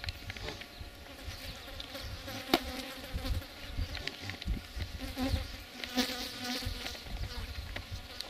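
Insect buzzing: a steady, even drone, with a sharp click about two and a half seconds in and a low rumble underneath.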